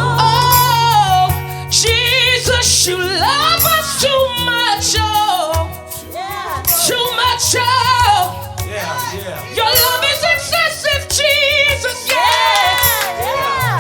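Live gospel worship music: a vocalist sings wavering, melismatic runs over the band, with held low bass notes underneath.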